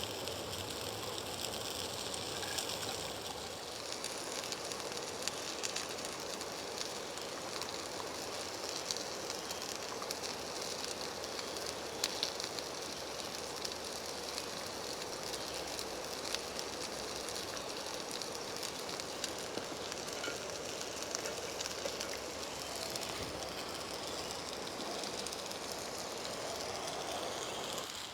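A camp stove burning, a steady hiss with frequent small crackles.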